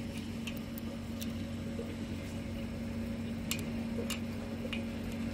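About half a dozen light clicks and taps from metal parts of a chain link fence machine being handled and adjusted, scattered over a steady low hum.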